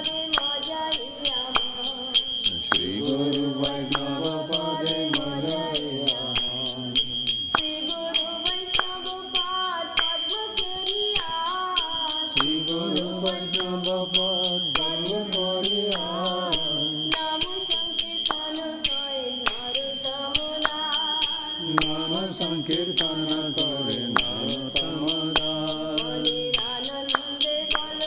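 A woman singing a Vaishnava kirtan solo in long wavering phrases, keeping time with a steady clink of small hand cymbals (kartals).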